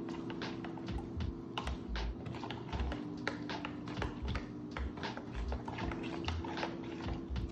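A small spoon stirring yeast into warm water in a bowl, clicking and scraping against the bowl's sides several times a second in an uneven rhythm.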